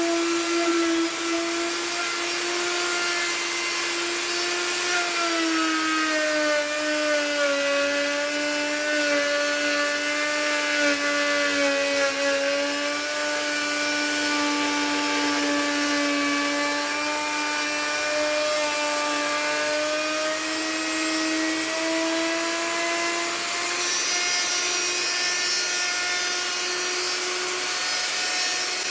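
Wood-carving machine's motor whining steadily as it cuts wood, with a rasping hiss from the cut. Its pitch sags a little about six seconds in and climbs back near the end.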